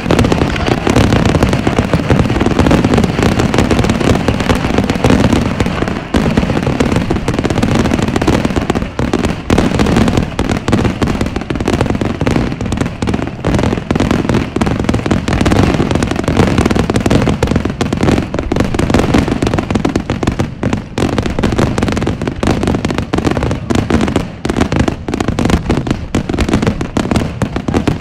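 Aerial fireworks bursting in a dense, unbroken barrage, one sharp bang tumbling over the next with no pause between them.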